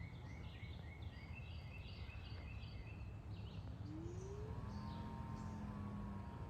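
Outdoor background with a steady low rumble and birds chirping, a quick run of short repeated notes in the first few seconds. About four seconds in a short rising tone sounds, followed by a steady hum that stops just before the end.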